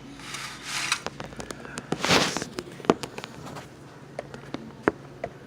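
Handling noise of the cake's takeout packaging: crackling rustles and scattered sharp clicks and taps, with a louder rustle about two seconds in.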